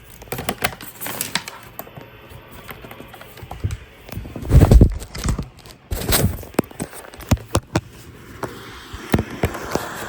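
Irregular clicks and knocks of handling noise close to the microphone, with a loud low thump about four and a half seconds in and another just after six seconds. A steady hiss creeps in near the end.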